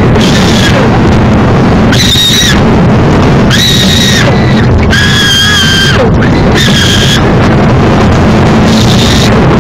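A crowd shouting, with high-pitched shrieks held at a steady pitch for about half a second to a second each, about six times. Very loud throughout.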